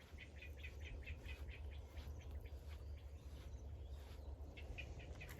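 A small bird chirping in quick repeated notes, several a second, in two runs with a pause between, over a steady low rumble of wind on the microphone.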